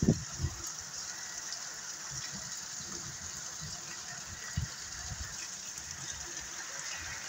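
Heavy rain falling steadily on a flooded courtyard, an even hiss of water, with a few short low thumps, one right at the start and another about halfway through.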